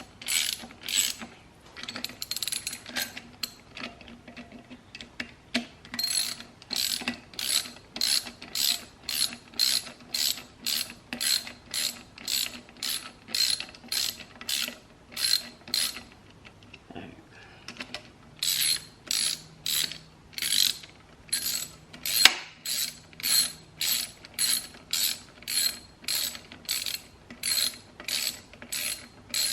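Hand socket ratchet clicking in an even rhythm, about two clicks a second, as the clutch spring bolts of a Honda CR125 are snugged down. The clicking breaks off for a couple of seconds a little past halfway, then resumes.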